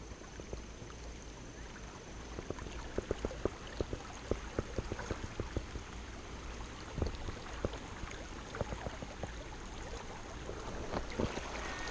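River water running and splashing, with scattered small knocks and clicks, as of wading and handling gear in a shallow stream.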